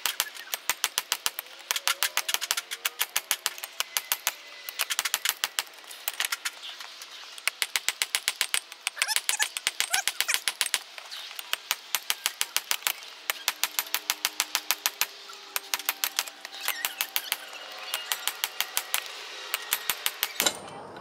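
Hand hammer striking red-hot leaf spring steel on a small steel block anvil, hand forging to draw it out: quick runs of ringing blows, several a second, broken by short pauses. The blows stop shortly before the end.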